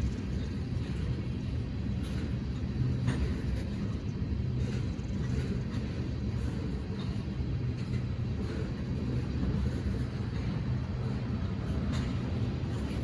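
Train rolling past: a steady low rumble with the drone of a diesel locomotive engine, and faint clacks of wheels over the track every second or two.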